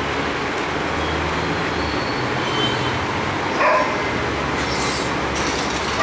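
A steady rushing noise, with one short high yelp from a dog about three and a half seconds in.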